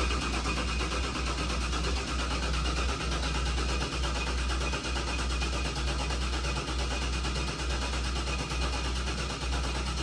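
Methanol-fueled Chevy Nova race engine idling just after a cold start, warming up: a steady low rumble that briefly dips about once a second.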